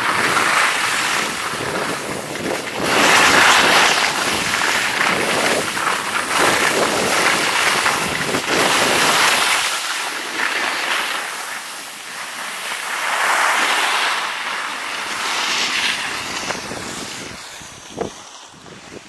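Skis sliding and scraping over packed snow, mixed with wind rushing over the microphone, swelling and easing several times and dying down near the end as the skier slows. A small knock comes near the end.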